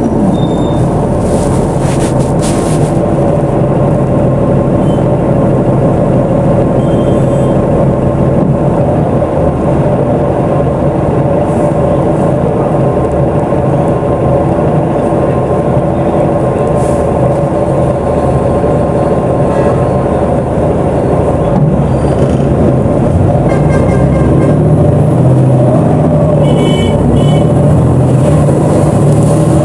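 BonLuck DD6181S32 articulated bus running steadily, its engine drone building somewhat in the last few seconds. Short high electronic beeps sound a few times near the start and again near the end.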